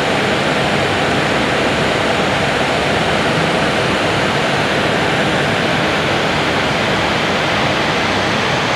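Steady, even rushing noise inside an airliner's flight deck at cruise around Mach 0.77: air noise with no change in level.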